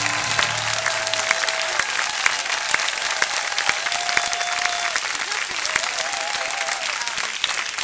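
Audience applauding with a dense patter of clapping, with a few whistles from the crowd. The backing music's last held chord fades out about a second in.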